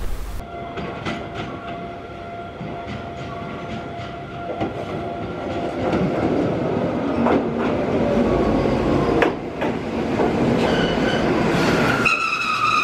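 Toyama Chiho Railway electric train running along the track, with a steady whine that sinks slowly in pitch and clicks at the rail joints. Near the end the wheels squeal loudly, rising in pitch.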